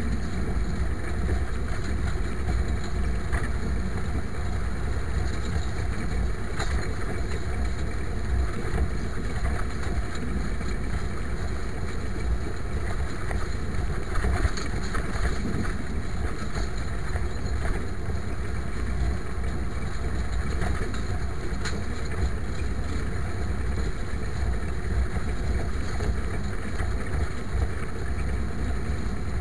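IMT 539 tractor's three-cylinder diesel engine running steadily under load, pulling a harrow.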